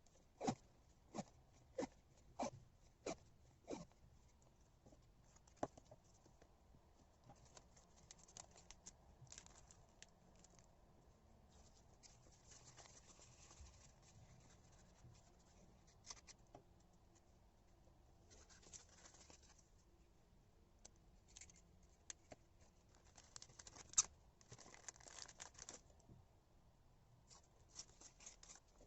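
Faint close handling of washi tape being wrapped: a run of light clicks about twice a second for the first few seconds, then scattered rasps of tape peeling off the roll and tearing.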